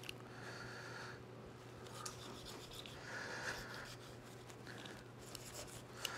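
Kitchen knife cutting up a raw whole chicken on a plastic cutting board: faint rubbing and scraping of blade, skin and meat in short spells, with a few light clicks.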